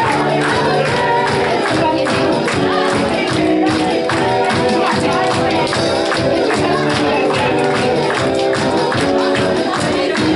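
Live worship music: singing over held chords, with a tambourine keeping a steady beat.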